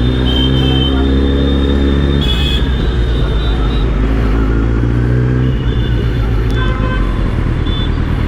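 Kawasaki Z900's inline-four engine running at low speed in traffic, with several short horn toots from surrounding vehicles.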